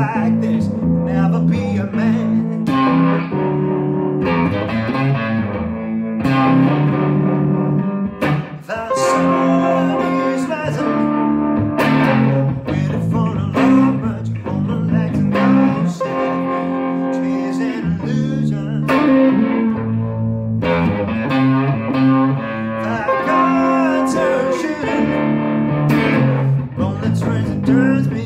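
Stratocaster-style electric guitar playing a continuous blues line of stepping single notes and chords.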